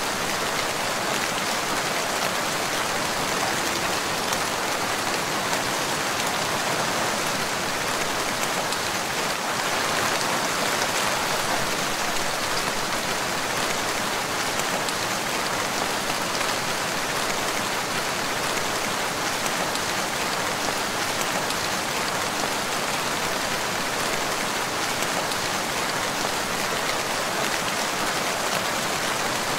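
Steady rain falling on a water surface: a dense, even hiss of drops that holds constant throughout.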